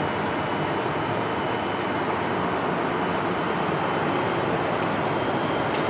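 Siemens Charger diesel locomotives of a Pacific Surfliner train idling while the train stands at the platform: a steady, unchanging running noise.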